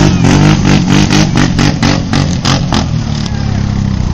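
A loud vehicle engine drops off from a held rev, falling in pitch, with a rapid run of sharp pops at about five a second that die out after nearly three seconds.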